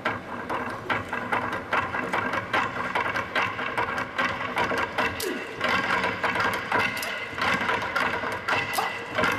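Several kitchen knives chopping fast on wooden cutting boards as a percussion routine, a dense, rhythmic run of sharp clicks and knocks.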